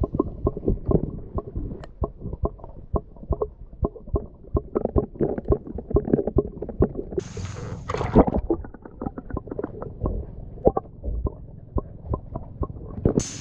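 Muffled underwater sound of a golden retriever paddling: irregular knocks and gurgles several times a second as its legs stroke the water, with a brief hissing rush about seven seconds in.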